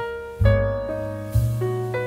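Background piano music: slow, sustained chords, a new one struck about every second.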